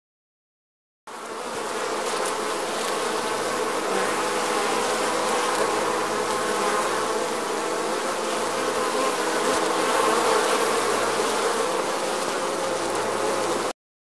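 A mass of honeybees on a hive frame buzzing together in a dense, steady hum. It starts about a second in and cuts off suddenly near the end.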